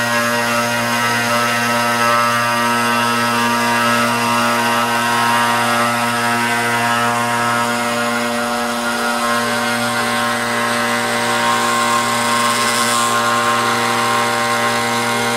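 Zen Toolworks desktop CNC router carving a wooden coaster: the spindle motor runs with a steady whine as the bit cuts, while other motor tones glide up and down in pitch now and then as the axes move. The machine is on its final deep pass around the outer circle.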